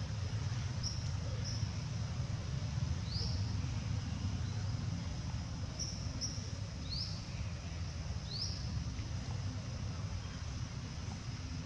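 Short, high chirps of a small bird, some rising quickly, heard several times over a steady low rumble.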